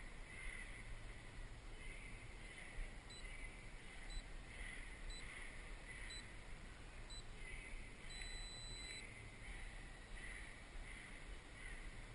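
Faint electronic beeps, five short ones about a second apart, then one longer beep about eight seconds in, over a faint steady hiss with a high chirp pulsing about twice a second.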